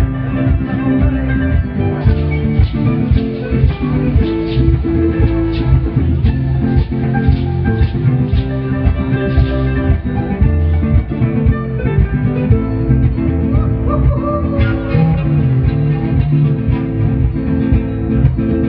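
Live band music: a strummed acoustic guitar and an electric guitar keep a steady rhythm.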